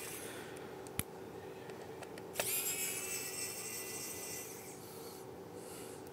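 A small electric precision screwdriver's motor spinning up and whirring for about a second as it backs out screws on a MacBook Air logic board. There is a sharp click about a second in and another just before the whir, over a steady low hum.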